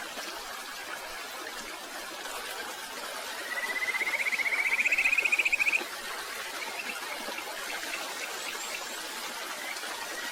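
Stream water running steadily, with a rapid, high-pitched animal trill, rising slightly in pitch, for about two seconds from about a third of the way in; another trill starts near the end.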